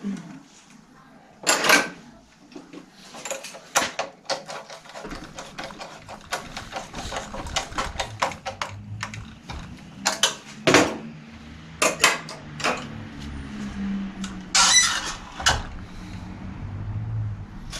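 Irregular metal clicks, clinks and knocks of hand tools and parts being handled at a bicycle's rear wheel hub, with two longer scraping rasps. A low rumble sets in about five seconds in.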